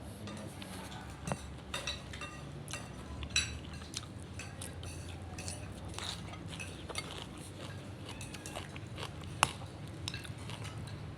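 Close-up eating sounds: utensils clinking against a dish between bites of rice and pork leg, with a sharp clink about nine seconds in.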